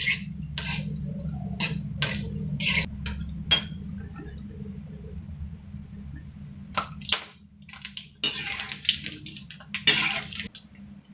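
Besan pakoras frying in oil in an iron kadhai, with a slotted spoon repeatedly clinking and scraping against the pan as they are turned. A low steady hum runs underneath and drops away about seven seconds in.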